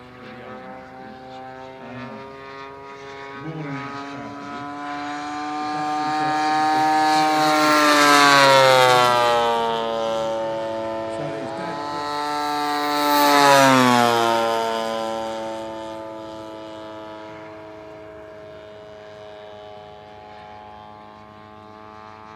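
Engines of two large radio-controlled scale model warbirds, a propeller-driven Bearcat and a jet F9F Panther, flying in formation and passing low twice. Each pass swells to a loud peak and the engine note drops in pitch as the aircraft go by, about 8 and 13 seconds in.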